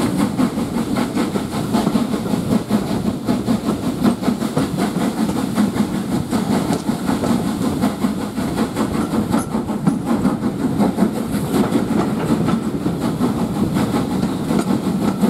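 Steam-hauled train running steadily, heard from an open carriage window: a continuous rumble and rattling clatter of the coaches' wheels on the rails behind an LSWR S15 steam locomotive.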